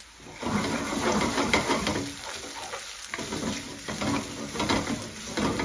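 Chopped onions sizzling in hot oil in a metal frying pan as a spatula stirs and scrapes them around, starting about half a second in with a brief lull around three seconds in.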